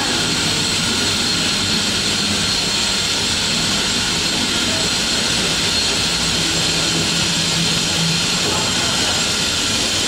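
Steady running noise of a glove dipping production line's machinery: a continuous hiss with a low hum under it, unchanging throughout.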